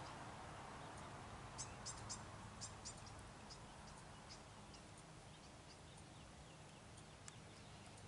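Near silence over a faint low rumble. About a second and a half in comes a quick run of about six short, high ticks, and a few fainter ticks follow later.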